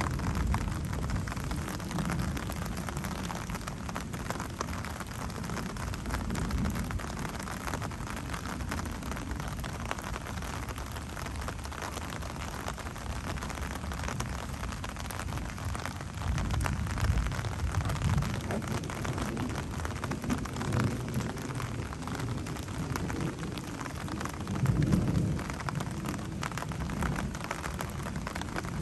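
Steady rain falling during a thunderstorm, with low rumbles of thunder rolling in several times; the loudest rumbles come a little past the middle and again near the end.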